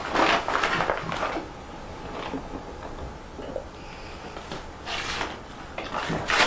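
Irregular handling noises, rustling and light knocks, with a cluster in the first second or so and more bursts near the end.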